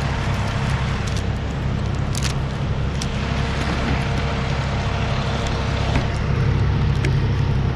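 Truck-mounted knuckle-boom tree crane's diesel engine running at a steady speed, a constant low drone. A few light clicks sound over it.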